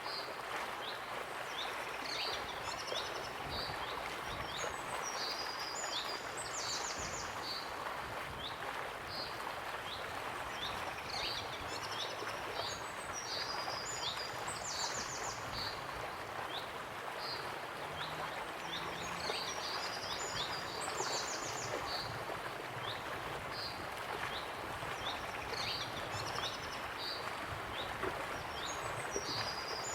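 Waterfall rushing steadily, with small birds chirping over it in short high calls, a similar run of chirps coming back every seven or eight seconds.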